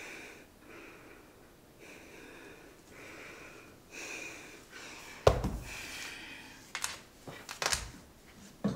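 A woman breathing heavily and audibly in frustration, one breath about every second. About five seconds in there is a loud thump, followed by a few smaller knocks and a second thump near the end.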